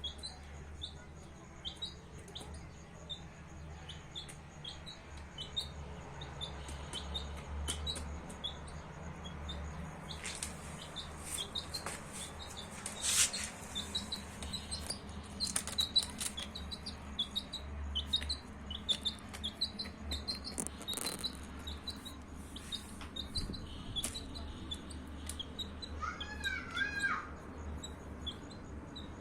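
Baby chicks peeping continuously, short high chirps that drop in pitch, one after another. A few sharp clicks occur about halfway through, and a lower call of four or five arching notes comes near the end, over a steady low hum.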